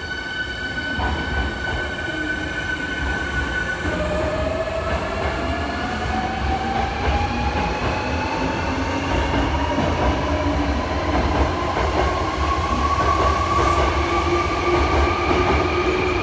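Hankyu 7300 series renewed electric train pulling away: a steady hum of several tones stops about four seconds in, then an electric whine from its traction equipment rises steadily in pitch as the train gathers speed, over a low rumble of the running gear. This train set is known for an unusual noise from its traction equipment.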